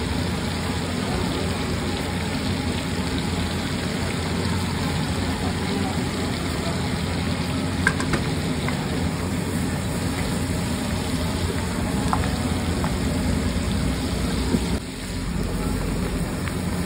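Oil with chopped green chillies and coriander sizzling on a large flat iron tawa, over a steady low rushing noise. Near the end a heap of chopped onions is tipped onto the hot tawa.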